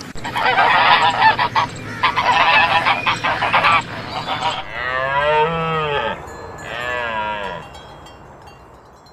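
A flock of geese honking in a dense, overlapping chorus for about four and a half seconds, then a cow mooing twice in long, drawn-out calls.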